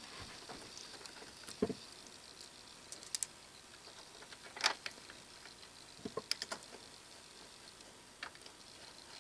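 Faint, scattered metallic clicks and clinks as a hex key and a high-speed-steel threading tool are handled against an Aloris BXA quick-change tool holder while the tool is loosened and repositioned: a single click, a quick pair, another single click, a cluster of about four, and a last click near the end.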